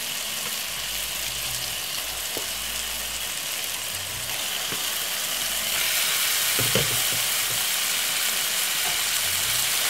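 Raw chicken pieces sizzling in hot oil and seasoning in a pot: a steady frying hiss that grows a little louder about six seconds in, with a few soft knocks.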